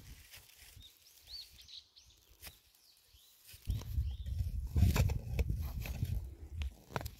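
A few faint bird chirps. Then, about halfway in, a loud low rumble with crackles sets in close to the microphone: handling noise as the phone is moved.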